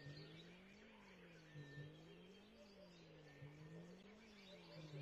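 Faint bird chirps over a low hum that rises and falls in pitch a little more than once a second.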